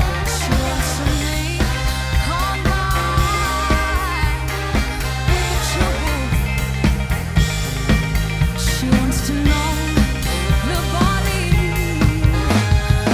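Full-band pop-rock song mix with drums on a steady beat and a sustained bass line, played back through a Sound Skulptor EQ250 equaliser on the mix bus as it is being equalised.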